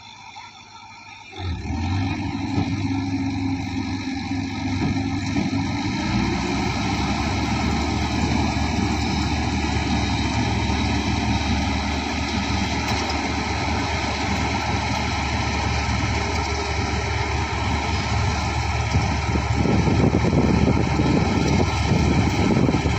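Combine harvester engine running steadily, coming in suddenly about a second and a half in and getting louder near the end.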